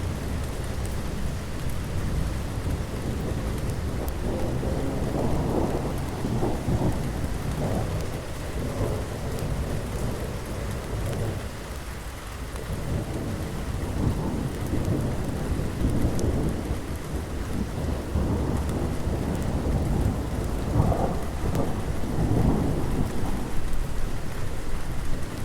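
Steady rain falling, with low rolls of thunder that swell and fade several times.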